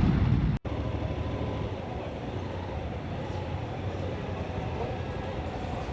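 Motorcycle on the move, heard as steady engine and wind noise over the rider's microphone. It cuts out abruptly about half a second in and comes back as a quieter, even rumble.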